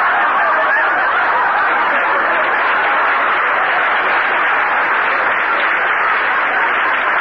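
Studio audience laughing and applauding in one long, steady wave, heard through an old radio broadcast recording.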